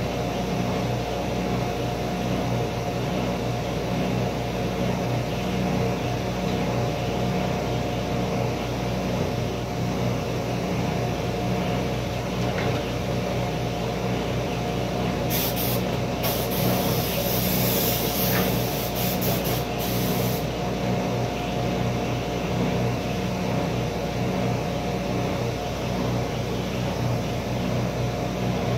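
Table saw motor running steadily with an even hum. Past the middle a high hiss starts and stops abruptly, lasting about five seconds.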